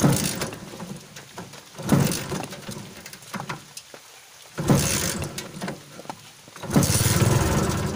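Kawasaki Barako's single-cylinder engine being started in four tries, each turning it over briefly before it dies away; the last try runs a little longer and steadier. It is slow to start because the bike has sat unused for about a week.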